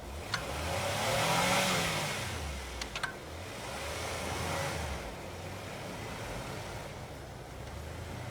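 Toyota FJ Cruiser's 4.0-litre V6 revving up and easing off twice under load, with a rushing hiss during the first rev and a few sharp knocks.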